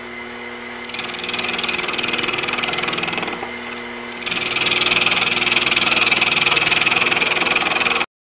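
Gouge making push cuts into a spinning green-wood log on a lathe, over the lathe's steady hum: one cut from about a second in to three seconds, a short pause, then a second, louder cut from about four seconds that cuts off suddenly just before the end.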